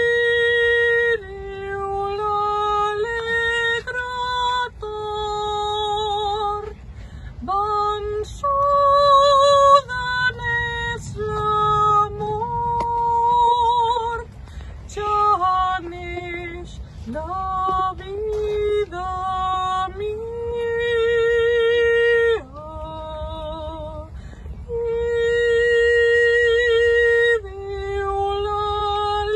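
A woman singing solo without accompaniment, in long held phrases with vibrato on the sustained notes and short breaks between phrases.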